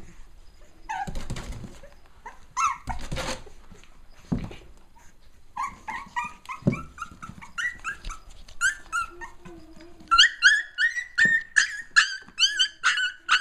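Cavalier King Charles Spaniel puppies play-fighting: a few scuffles at first, then a run of short high yips from about halfway, several a second, getting quicker and higher-pitched near the end.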